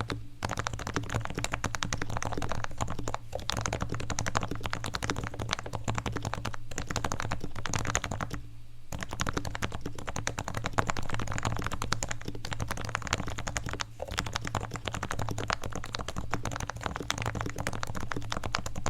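Fast, continuous typing on a Realforce R2 Topre electrostatic capacitive keyboard with 55 g switches, with a short pause about eight and a half seconds in.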